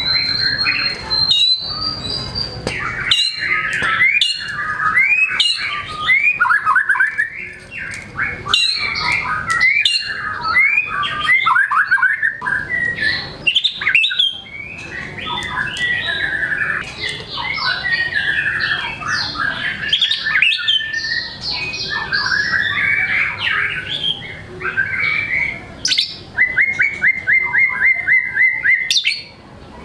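White-rumped shama (murai batu) singing loudly and without pause, "bongkar materi": showing off its full repertoire of learned song. It is a fast, varied stream of whistles, chirps and harsher notes, and near the end it switches to a rapid run of short repeated notes.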